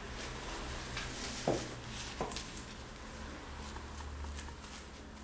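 Quiet handling of a disposable diaper as scissors begin piercing it: faint plastic rustling with a few small clicks and a brief squeak about one and a half seconds in.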